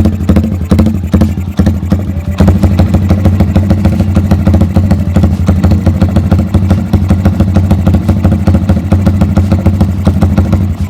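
Yamaha Vixion's single-cylinder four-stroke engine idling with a 'timing kuda' ignition modification, its firing falling into an uneven, galloping beat like a horse's hooves. The beat becomes more distinct about two seconds in.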